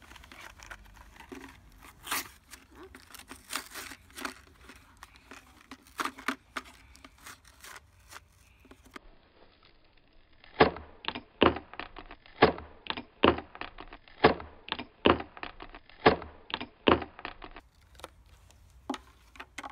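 Plastic blister packaging and card crackling and tearing as a toy figure's pack is opened by hand, followed in the second half by a run of sharp clicks, about two a second.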